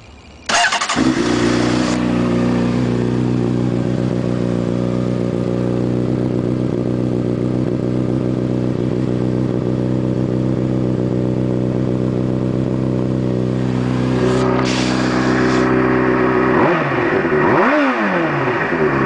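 2008 Honda CBR600RR's inline-four starting up through an Akrapovic slip-on exhaust run without its baffle insert. It settles into a steady idle, then is revved briefly twice near the end.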